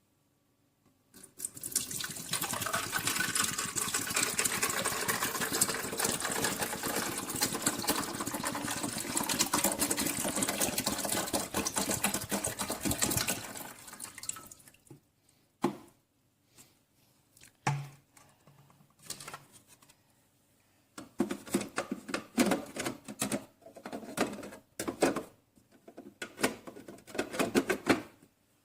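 Keurig K-Classic coffee maker brewing: water streams steadily for about twelve seconds, then comes a run of irregular short sputters, drips and clicks.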